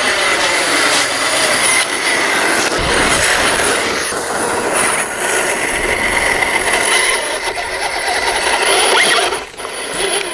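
A 6x6 radio-control scale truck driving hard on battery-electric power: its motor and geared drivetrain whine, rising and falling with the throttle, over the noise of tyres churning through wet mud. The whine eases off briefly near the end.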